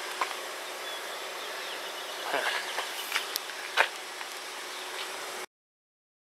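Steady outdoor background hiss with a few faint ticks and a short chirp. It cuts off abruptly to silence about five and a half seconds in.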